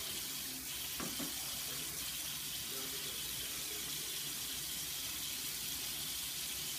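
Bathroom sink faucet running steadily, the water splashing over a child's hair and into the basin as conditioner is rinsed out.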